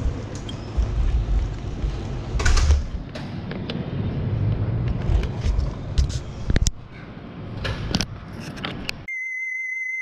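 Outdoor street ambience with a low rumble, and sharp knocks as a hand handles the camera, mostly in the later part. About nine seconds in this cuts abruptly to a steady high electronic tone.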